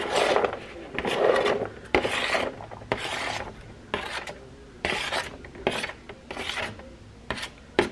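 Kitchen knife scraping chopped celery and onion across a plastic cutting board into a slow cooker: a series of short, raspy strokes at an uneven pace, about one a second.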